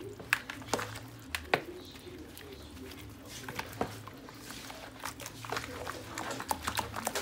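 Scattered sharp clicks and light knocks from a container and raw chicken pieces being handled while they are seasoned, over an intermittent low hum.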